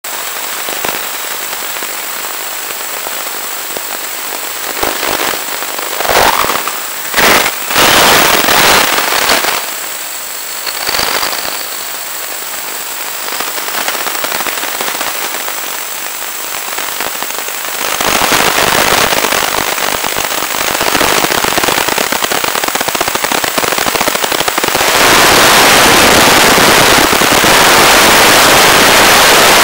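Hiss and crackle of an analog FPV video link's audio channel from an RC plane, under a faint steady high whistle. Bursts of crackle come in the first ten seconds, and the hiss grows much louder near the end as the signal breaks up.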